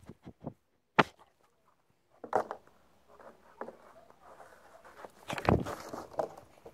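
A dog running on the lawn right by the camera: its paws thud and scuff in the grass. There are sharp knocks, one about a second in, and a heavier low thump a little before the end.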